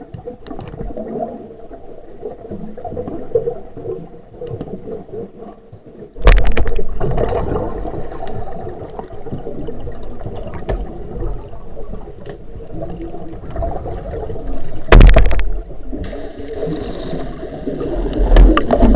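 Muffled water gurgling and rushing, heard through an underwater camera housing. There are two sudden loud surges, one about six seconds in and a shorter one about fifteen seconds in.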